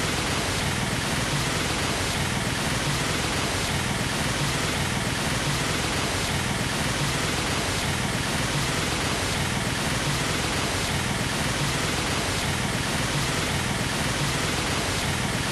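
Steady rushing roar of a fast-flowing river in flood, muddy water churning with no break or change.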